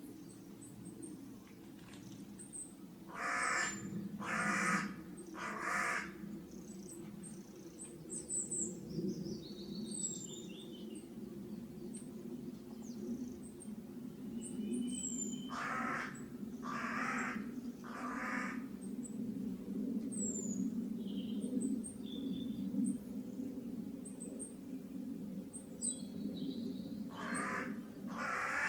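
A crow cawing three times in a row, then again three times about twelve seconds later and twice near the end, harsh and loud. Thin high chirps from small birds are scattered between the caws, over a steady low hum.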